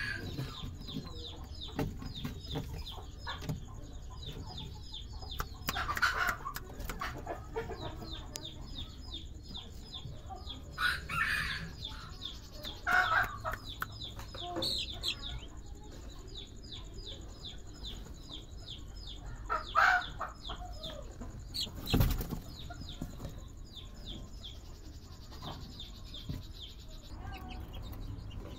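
Serama bantam chickens clucking and calling in a wooden coop, with a fast, high chirping running underneath throughout. A single sharp thump comes about three-quarters of the way through.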